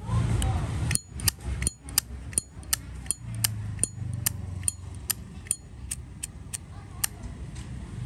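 Brass Zippo lighter's hinged lid being flipped open and snapped shut over and over: a quick run of sharp metallic clicks, about three a second, several with a brief high ring.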